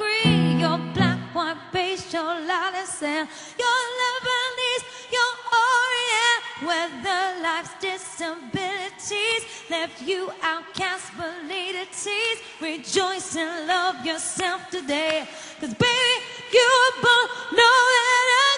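Female voice singing live, drawn-out notes with strong vibrato, over grand piano accompaniment.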